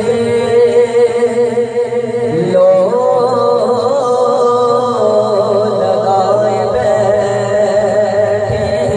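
A young man's solo voice singing a rubai (Urdu quatrain) into a microphone, drawing out long, wavering, ornamented notes that climb to a higher phrase about three seconds in, then settle into steadier held notes.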